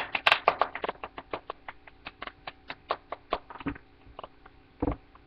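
Typing on a laptop keyboard: a quick, irregular run of key clicks, several a second, growing fainter, with one louder knock near the end.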